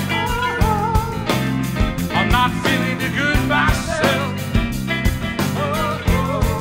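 Live rock band playing: electric guitar, bass guitar, keyboards, drum kit and hand drums, with a lead voice singing over a steady beat.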